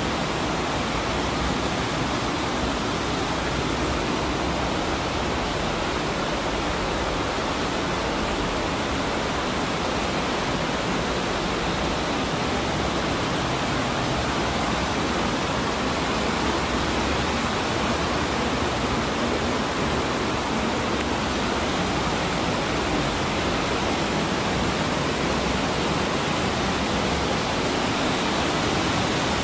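Underground cave waterfall rushing steadily.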